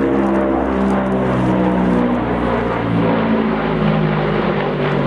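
Antonov An-22 turboprops with contra-rotating propellers droning overhead in flight: a loud, steady propeller drone with a strong hum whose pitch shifts up and down as the aircraft banks past.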